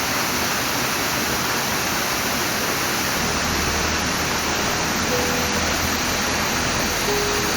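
Tall waterfall, about 73 m high, pouring steadily: an even, continuous rush of falling water.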